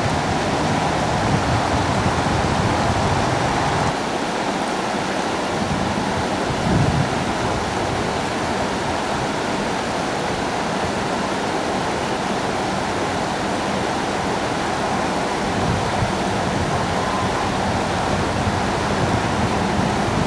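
Steady rush of river water flowing over stones, with a low rumble that thins out about four seconds in and comes back later.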